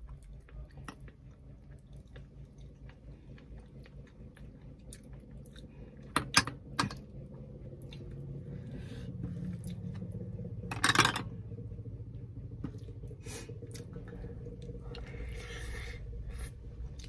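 Close-up mouth sounds of someone eating rice and braised tilapia: chewing with many small wet clicks. A couple of sharp clicks come about six seconds in, and a short louder noise about eleven seconds in.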